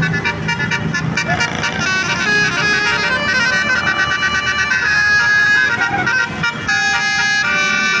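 A bus's multi-trumpet 'telolet' horn (Basuri type) playing a fast tune of changing notes, choppier and pulsed near the end, over the low rumble of the bus's engine at the start.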